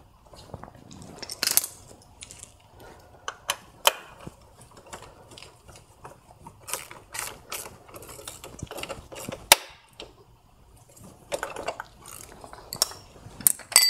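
Socket ratchet clicking in short irregular runs, with metal tool clinks, as the oil filter is fitted and tightened on a VW 2.0T TSI engine.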